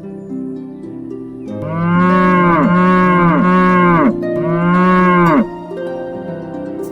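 A cow mooing twice, a long call and then a shorter one, over soft harp-like background music.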